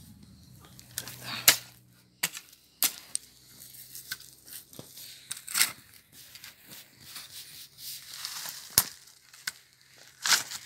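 A spade being driven into and levering up loose garden soil: irregular crunches and scrapes of the blade in the earth, with several sharp strikes.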